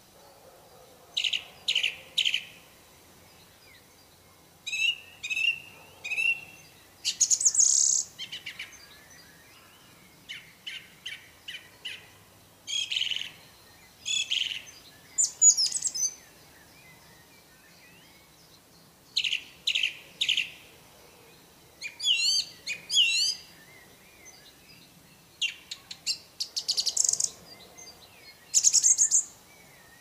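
Song thrush singing: bursts of loud, varied high phrases, many made of the same note or figure repeated two or three times, with pauses of a second or two between bursts.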